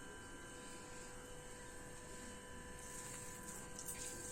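Faint steady electrical hum over low room noise, with a soft hiss rising slightly near the end.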